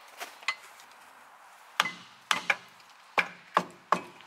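Hammer striking the trailer's MorRyde independent suspension: two light knocks, then about six harder sharp blows from about two seconds in, beating the assembly into line so its bolts can be fitted.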